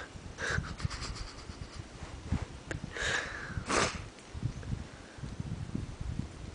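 Two dogs playing, with a few short breathy huffs (the loudest pair about three seconds in) over low scuffling of paws on the floor.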